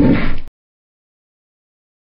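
The end of a short, loud cartoon roar sound effect for an animated cat mascot, held at a steady pitch. It cuts off abruptly about half a second in and is followed by dead silence.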